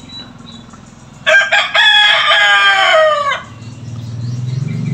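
A rooster crows once, a loud call of about two seconds that starts about a second in and falls away at the end. A low steady hum builds up near the end.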